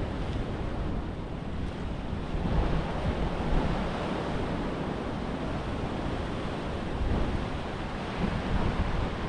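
Sea waves washing in on the shore, with wind buffeting the microphone as a low rumble.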